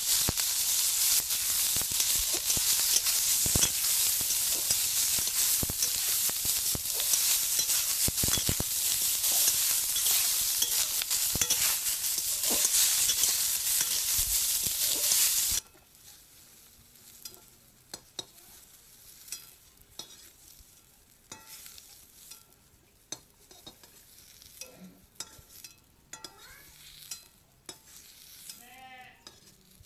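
Boiled, peeled eggs sizzling loudly in hot oil in an aluminium wok, with a metal ladle clicking and scraping against the pan as they are stirred. The sizzle cuts off suddenly about halfway through, leaving only faint scrapes and taps.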